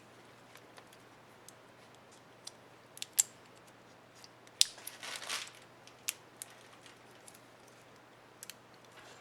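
Sharp plastic clicks and snaps from handling an Asus K55A laptop's spacebar keycap and its clips, with a short scraping rustle about five seconds in. The loudest clicks come about three seconds in and again about a second and a half later.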